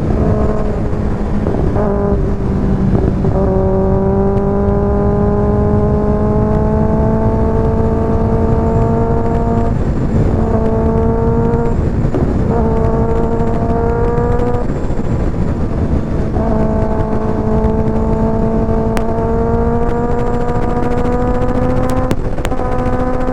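Kawasaki ZX-6R's inline-four engine through an aftermarket IXIL exhaust, running under way with its pitch creeping slowly upward. The engine note breaks off briefly about five times and then picks up again. A steady rush of wind and road noise runs underneath.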